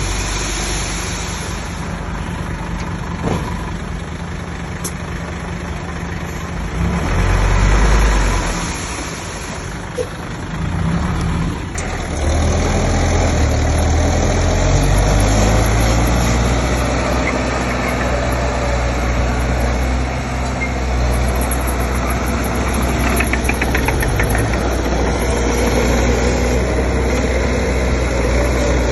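Heavy diesel earthmoving machinery running: a steady low engine drone that swells briefly about seven seconds in and grows louder and steadier from about twelve seconds in.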